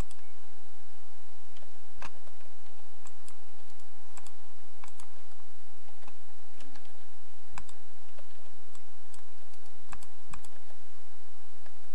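Irregular clicks of a computer keyboard and mouse, single or in small clusters every second or so, over a steady low hum.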